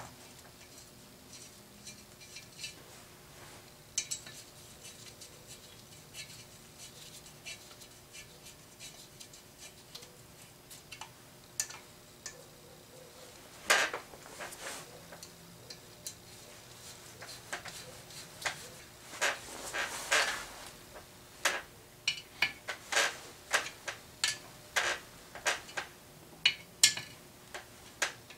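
Hand tools clicking and clinking on metal as the reed cage and carburetor adapter are bolted onto a Yamaha Blaster two-stroke cylinder: sparse light clicks at first, then a quicker run of clicks and clinks from about halfway through.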